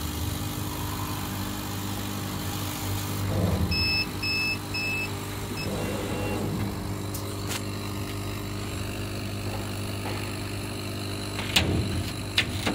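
CO2 laser cutting machine running on clear acrylic with a steady low hum. About four seconds in, a row of short electronic beeps sounds, three evenly spaced and then a couple more. Near the end come several sharp clacks as the cut acrylic pieces are handled.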